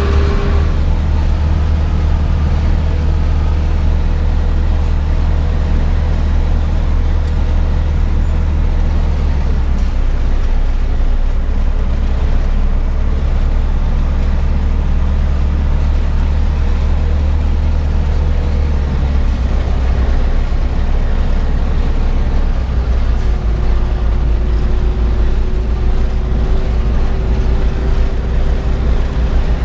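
Zetor 7011 tractor's four-cylinder diesel engine running under way, a loud steady drone whose note shifts about ten seconds in and again near twenty seconds.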